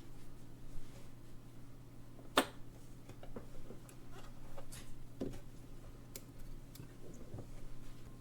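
Scattered small clicks and taps of watchmaker's tools on the parts of an alarm clock movement as it is taken apart, the sharpest click about two seconds in, over a steady low hum.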